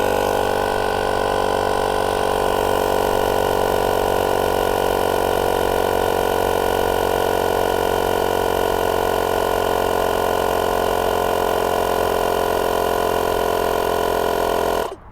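The air compressor built into a JF EGWO 1000A jump starter runs steadily while inflating a tyre, then cuts out by itself about a second before the end. Its battery is nearly flat or the unit has overheated.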